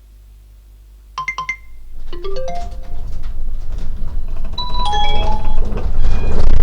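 Emergency earthquake warning chimes: two sharp chime tones about a second in, then runs of bell-like notes rising and then falling. Under them, a low rumble and rattling from the earthquake shaking grows steadily until it is very loud near the end.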